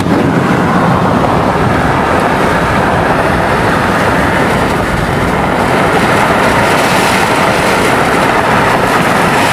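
Steady road and wind noise of a car driving at speed, heard from inside the cabin.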